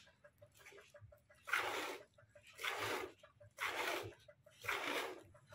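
Milk squirting into a plastic bucket as a desi cow is milked by hand: four spurts about a second apart, starting about a second and a half in.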